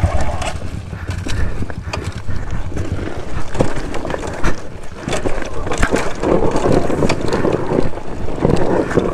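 Kawasaki KLX 140G single-cylinder dirt bike going downhill on a rough trail: a low engine rumble, with repeated knocks and rattles from the bike over bumps. Wind buffets the microphone.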